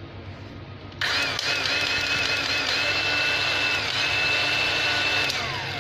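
Makita 5093D 12V cordless circular saw with an 85 mm blade running free, not cutting. Its motor starts suddenly about a second in with a high, steady whine, holds for about four seconds, then winds down with a falling whine as the trigger is released.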